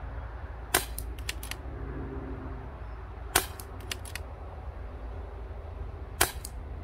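Three shots from a Daystate Alpha Wolf .22 PCP air rifle, each a short sharp crack, roughly two and a half to three seconds apart. Each shot is followed by a few lighter clicks.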